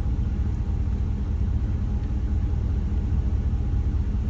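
Truck engine running: a steady low rumble.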